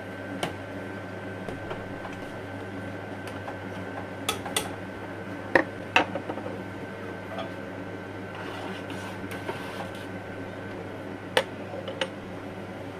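Kitchen dishes and utensils being handled: a handful of short, sharp clinks and knocks, a few in the middle and two more near the end, over a steady low hum.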